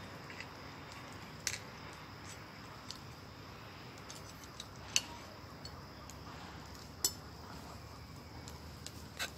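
A few scattered, sharp light clicks and clinks, about six in nine seconds, the loudest about five and seven seconds in, over a faint, steady low background rumble.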